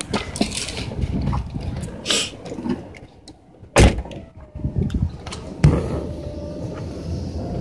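A 2001 Buick Century being shut up for a drive: a sharp slam about four seconds in and a duller thump nearly two seconds later, among handling noise.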